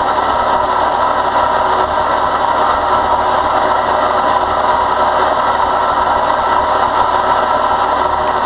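Pro Mac 36CMP hydraulic rotary brush cutter running free with nothing to cut, its cutter disc spinning while the hydraulic power source's engine runs. It makes a steady mechanical drone with an even pitch that does not change.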